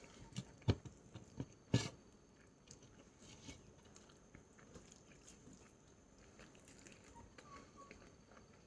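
A person eating close to the microphone: chewing and mouth sounds, with a few sharp clicks in the first two seconds, the loudest about a second and two seconds in, then fainter scattered ticks.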